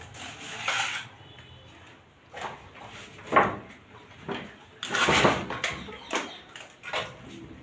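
Irregular slaps and scrapes of wet plaster of Paris being pressed by hand onto the wire mesh of a false-ceiling frame, filling it in. There is a sharp slap a little before halfway and a longer scrape just after.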